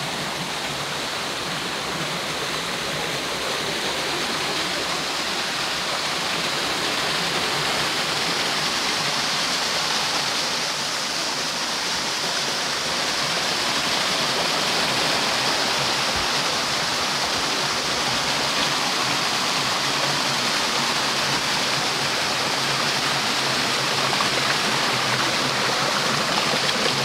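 Flowing creek water, a steady rushing hiss that grows slightly louder as it goes on.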